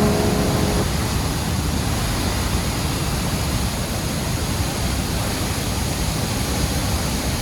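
Steady, full roar of a large waterfall, Murchison Falls, where the Nile pours through a narrow rock gorge, with the tail of background music fading out about a second in.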